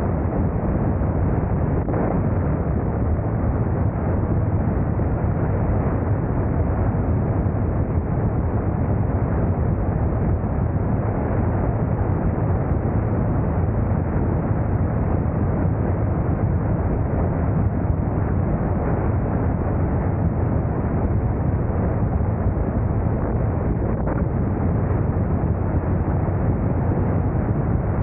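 Motorcycle riding at a steady speed: a low engine rumble mixed with wind noise buffeting the camera microphone, with no change in pace.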